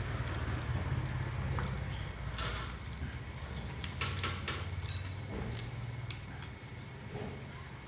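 Small metal parts clicking and rattling as they are handled, in a run of short irregular ticks, over a steady low hum.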